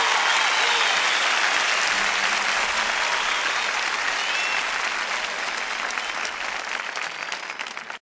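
Audience applauding and cheering, with a few whistles, at the end of a live song recording. It fades out steadily and cuts off at the end.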